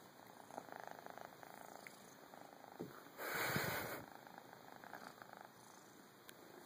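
Kitten purring close up while being petted, a fast steady rattle that comes and goes. A short, loud burst of noise breaks in about three seconds in.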